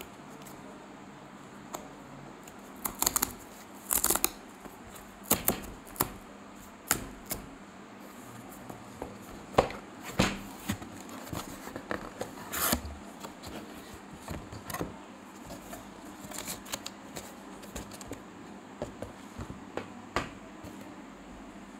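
Brown cardboard mailer box opened by hand: an irregular string of short, sharp tearing, scraping and crackling sounds as the perforated edge and flaps are pulled open, with rustling as the box inside is handled.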